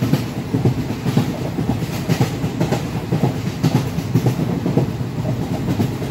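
Passenger train running on the rails: a steady rumble with irregular clattering of the wheels.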